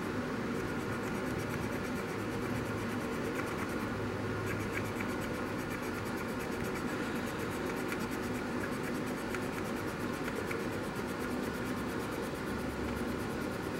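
Damp cotton swab rubbing over the plastic shell of an HO-scale model locomotive, a faint scratchy scrubbing as the weathering wash is wiped back, over a steady hiss of room noise.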